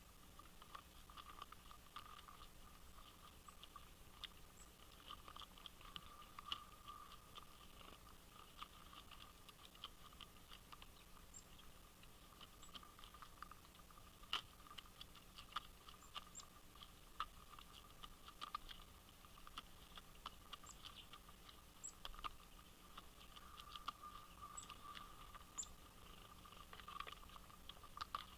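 Irregular light tapping and clicking of birds pecking at seed on a feeder, with now and then a faint, short high-pitched note.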